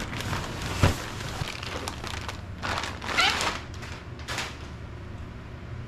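Cardboard packaging rustling and scraping as an aluminium oil cooler is slid out of its box and handled, with a sharp knock just before a second in and short rustles around three and four seconds in.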